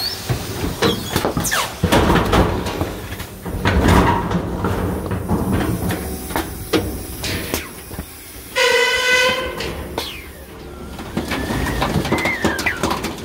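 Garbage truck compactor crushing trash bags over the low rumble of the truck, with repeated sharp pops and cracks. About nine seconds in, air squeezed out of a bag makes a pitched whistle for about a second, and a fainter gliding whistle follows later.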